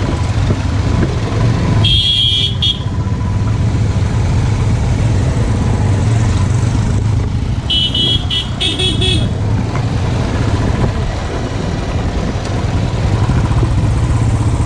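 Motorcycle engine and wind rumbling steadily while riding, heard from a helmet-mounted camera. A vehicle horn sounds once about two seconds in, then a few short horn beeps about eight to nine seconds in.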